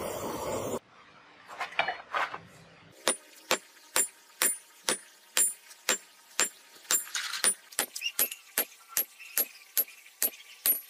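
Hammer blows on hot iron on a steel anvil. After a few softer knocks they settle into a steady rhythm of about two to three strikes a second, each with a high ringing note. A short rush of forge fire noise opens and cuts off within the first second.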